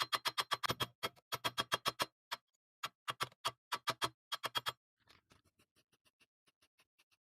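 Background music of fast, evenly spaced plucked notes with short breaks. It drops away about five seconds in, leaving only faint ticks.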